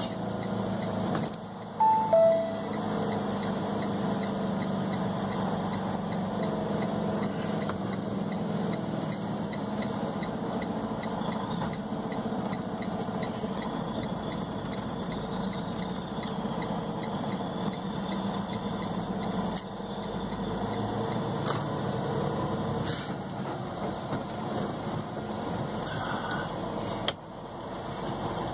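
Semi truck's diesel engine running steadily under way, heard inside the cab. About two seconds in, a short two-note electronic chime sounds, the second note lower.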